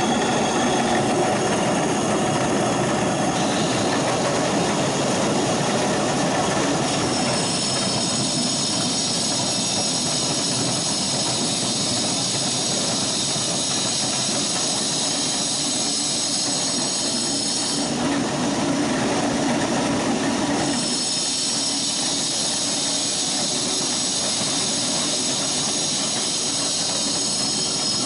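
Motor-driven stone mill running steadily, grinding dog food: a continuous mechanical rumble and grinding noise. A high steady whine joins about seven seconds in, stops for a few seconds just past the middle, then comes back.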